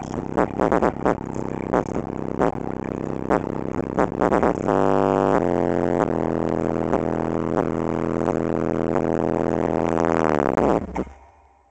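TC Sounds 12-inch subwoofer, driven by a Soundstream 700.2 amplifier bridged at 2 ohms, playing loud, distorted bass. Sharp pops come through for the first few seconds. From about five seconds in a long sustained bass note plays, dropping in pitch and cutting off about a second before the end.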